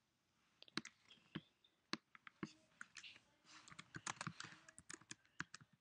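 Quiet computer keyboard typing: a few separate key clicks, then a quicker run of keystrokes from a little past halfway, as a search query is typed.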